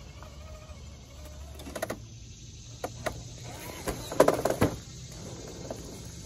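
Traxxas TRX-4 RC crawler's electric motor and geared drivetrain whining, rising and falling in pitch as it crawls. Sharp knocks and scrapes of tyres and chassis on the log come a few times, loudest in a clatter past the middle.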